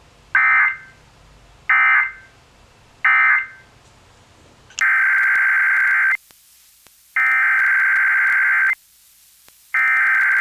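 NOAA Weather Radio SAME digital data bursts: three short screechy bursts about a second and a quarter apart, the end-of-message signal closing one alert. About five seconds in come three longer bursts, each about a second and a half, the header that opens the next alert.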